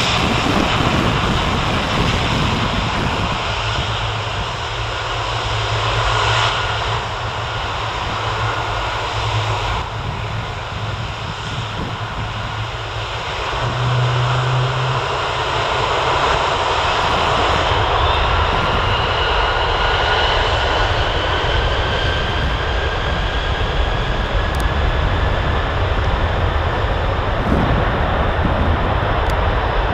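Four Rolls-Royce RB211-524D turbofans on a Boeing 747-200 freighter spooling up for take-off. A steady jet roar grows louder about halfway through, with a whine rising in pitch over the last third.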